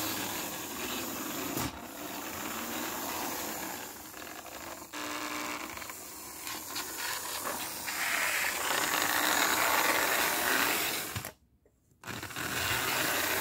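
First-year Lionel No. 60 toy trolley car running along its track: the steady mechanical sound of its small electric motor, gears and wheels on the rails. The sound drops out to near silence for about half a second near the end.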